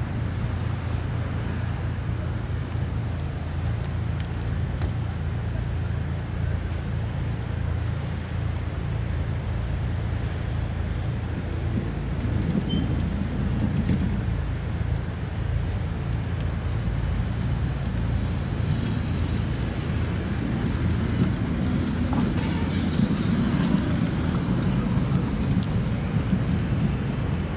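Steady low rumble of vehicle and traffic noise, swelling a little twice.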